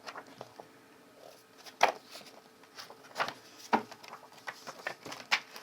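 Paper rustling as a printed booklet's pages are handled and turned, in scattered short rustles with a few sharper crackles about two seconds in and again around three to four seconds.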